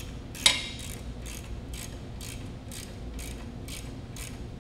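A 1/2-inch ratchet socket wrench clicking about twice a second as it is swung back and forth, tightening a lock nut onto a bolt. One sharper metal clack sounds about half a second in.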